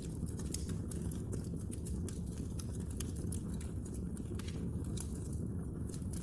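Wood fire in a fireplace burning, with a steady low rumble of flames and frequent irregular sharp crackles and pops from the logs.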